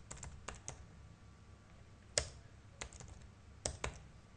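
Computer keyboard typing in short, irregular runs of keystrokes: a quick cluster at the start, a pause of over a second, then a single sharp stroke followed by small groups of clicks.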